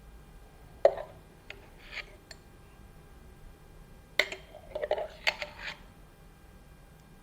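Cups and small kitchenware being handled and set down: a sharp knock about a second in, a few light clinks, then a cluster of knocks and clinks between about four and six seconds.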